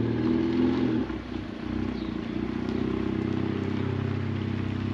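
Car engine running steadily, presumably the Alfa Romeo Giulia Q4 on its new coilovers.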